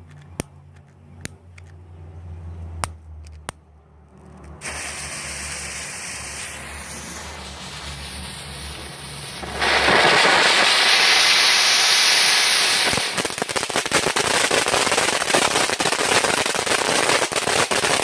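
Consumer firework going off: a hiss starts about five seconds in, grows into a much louder spraying hiss about ten seconds in, then turns into a dense, rapid crackling from about thirteen seconds on.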